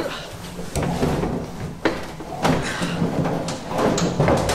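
Knocks, bumps and clothing rustle as two people clamber over the sides and roll cage of an open-top kit race car into its bucket seats. There are several sharp knocks, the clearest about one, two and two and a half seconds in.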